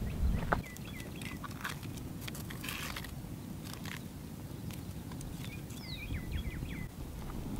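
Mesquite wood fire crackling with scattered sharp pops beneath a stone oven, over a low rumble. A bird sings twice, about a second and a half in and again near the end, each time a falling whistle followed by a quick run of short chirps.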